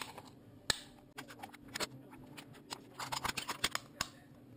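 Thin aluminium soda can being cut and torn apart along a scored line with a sharp tool: irregular sharp clicks and crackles of the metal, thickest in the second half.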